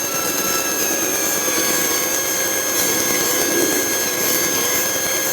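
Cessna 150's Continental O-200 engine idling steadily on the ground, heard from inside the cockpit.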